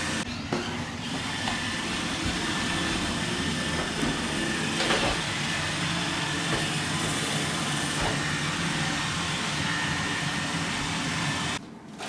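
iRobot Roomba 880 robot vacuum running steadily, a constant mechanical hum with one light knock about five seconds in; the sound cuts off suddenly near the end.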